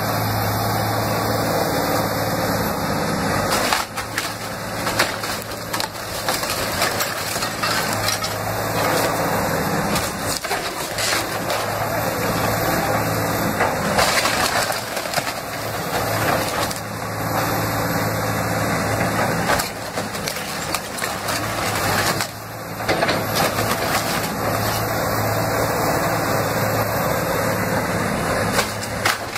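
A Caterpillar 336E hydraulic excavator's diesel engine runs steadily while its bucket tears apart a wooden house frame. Timber cracks and splinters and debris crashes down in repeated sharp snaps and thuds.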